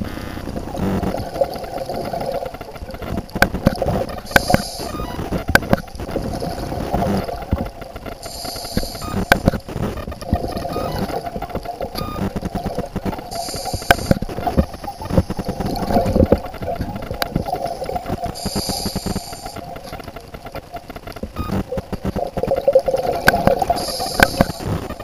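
Scuba diver breathing through a regulator underwater. A short hissing inhale comes about every five seconds, with rumbling, crackling exhaled bubbles in between.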